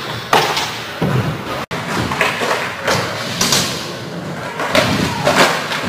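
Skateboard rolling on a wooden ramp and board, with several sharp thumps and clacks as the board pops, hits the handrail and lands.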